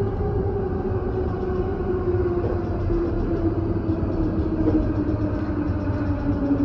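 Yamanote Line electric commuter train running, heard from the driver's cab: a steady low rumble with a whine that falls slowly and steadily in pitch.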